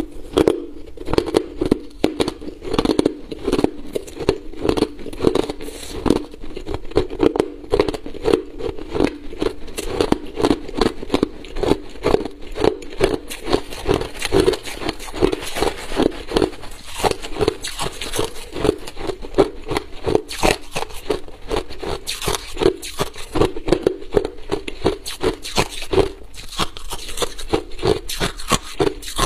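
Crushed ice crunched between the teeth: a fast, unbroken series of sharp crunches, several a second. A steel spoon scrapes through the ice in the bowl.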